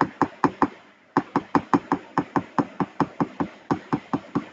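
Rapid hammer taps, about five a second with a short break about a second in, on a metal punch held against a small transformer's core, driving the core pieces out of the bobbin.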